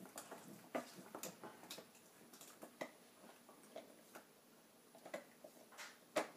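A chocolate Labrador gnawing a bone: irregular faint clicks and taps of teeth on the bone, with one sharper click about six seconds in.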